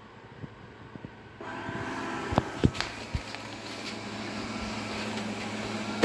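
Shimono RS38B robot vacuum cleaner's suction fan and brushes starting up suddenly about a second and a half in, then running with a steady hum. A few sharp knocks come just after it starts.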